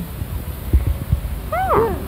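Plant stems and seed pods being handled, with a few soft clicks. About a second and a half in, a person gives a short wordless exclamation that rises and then falls in pitch.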